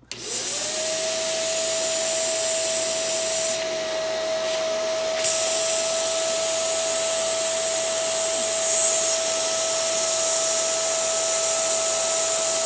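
Vacuum cleaner motor starting up, its whine rising to a steady pitch as it sucks the air out of a plastic vacuum storage bag. The rush thins and drops for a second or so about four seconds in, then runs steady again.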